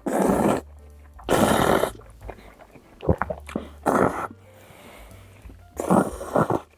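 A person eating close to the microphone: two loud slurps, just after the start and about a second and a half in, then wet chewing with sharper clicks and smacks, typical of sucking up and chewing jjapagetti noodles.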